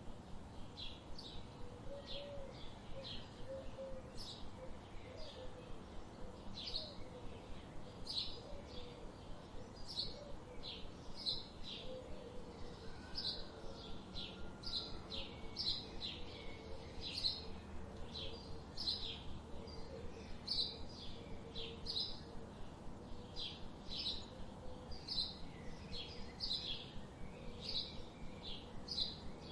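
Birds singing: short, high chirps repeat about twice a second, over a steady background hiss. A softer, lower wavering call runs under them through much of the stretch.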